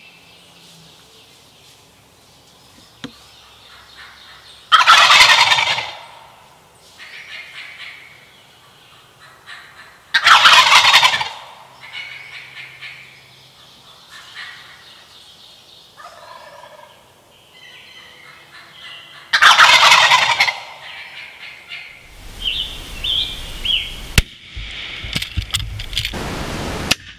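Wild turkey gobblers gobbling: three loud, rattling gobbles about a second long, spaced several seconds apart, with fainter calls between them. A rushing noise with short high calls in it fills the last few seconds.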